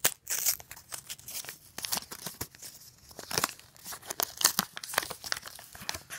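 Small paper blind-bag packet being opened by hand: irregular crinkling and tearing of paper, a quick run of sharp crackles.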